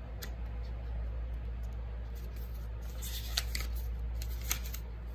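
Steady low hum of an electric fan, with a few short paper rustles and clicks about three to four and a half seconds in, as the pages of an oracle-deck guidebook are turned.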